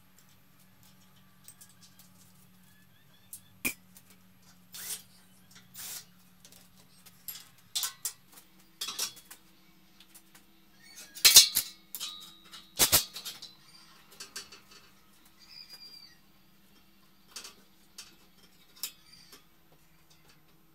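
Sharp metallic clinks and clanks of steel tools and parts being handled, the loudest few about halfway through, over a faint steady low hum.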